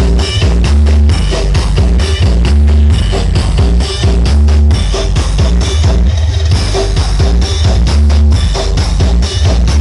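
Loud music with a heavy, booming bass line and a steady drum beat, played through a large truck-mounted 'sound horeg' speaker system.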